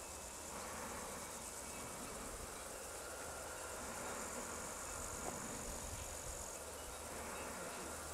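Outdoor ambience of insects, such as crickets or grasshoppers in a summer meadow, chirring as a steady high-pitched hiss over a low background rumble.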